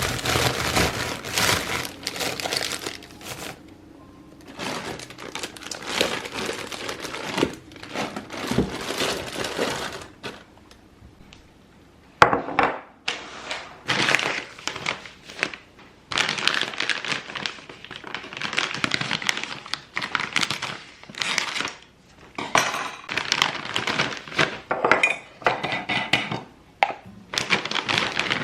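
Kitchen handling sounds: items, containers and packaging being picked up, set down and moved, with irregular knocks, clatter and some crinkling. There is a brief lull about a third of the way in.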